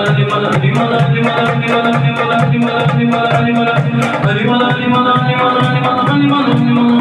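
A group of men singing a devotional naat together into microphones, with held, wavering notes, over a small single-headed hand drum beaten with the fingers in a quick, steady rhythm.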